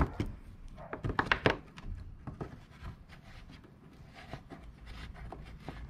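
A few scattered clicks and knocks of tools or parts being handled, loudest about a second in, over a low hum.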